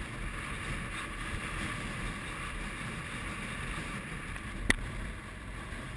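Strong mountain wind rushing and rumbling steadily across a camera microphone, with one sharp click almost five seconds in.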